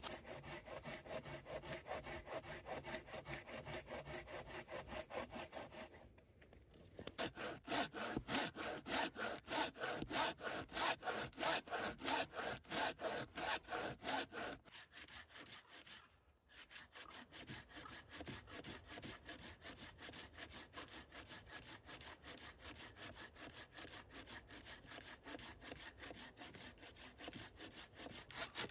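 Hand saw cutting through wood in quick, steady back-and-forth strokes, stopping briefly twice.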